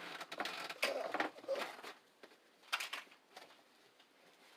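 Faint voices with a few sharp knocks, about one second and nearly three seconds in, then quieter.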